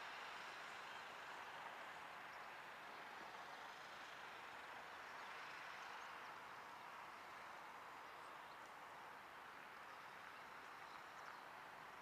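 Near silence: faint steady outdoor rush like distant traffic, with a few faint, short high chirps in the middle and near the end.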